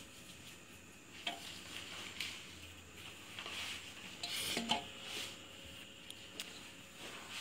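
Metal spoon scooping rice-flour batter from a steel bowl and pouring it into a hot cast-iron chitoi pitha mould, with scattered light clinks and scrapes of spoon on metal. The loudest knocks come about halfway through.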